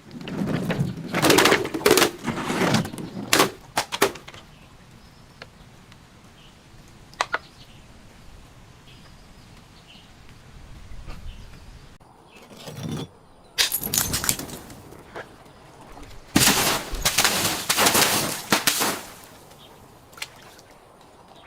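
Three loud clusters of cracking and crunching as objects break under impact, with quieter pauses between them and a single sharp crack in the first pause.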